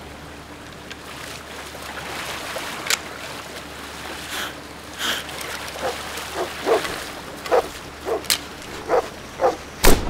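River water running, with a dog splashing as it swims closer, a string of paddling splashes every half second or so in the second half, and a few sharp clicks earlier on. One very loud pistol shot just before the end.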